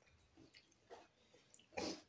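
Chewing sounds of people eating, in a few short bursts, the loudest near the end.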